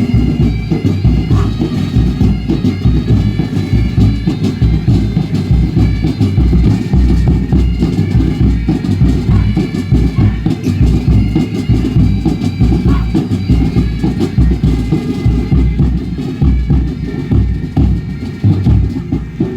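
Loud music with a heavy drum beat and steady held melody tones.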